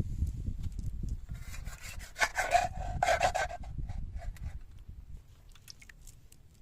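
A quick run of rubbing, scraping strokes lasting about two seconds, over a low rumble.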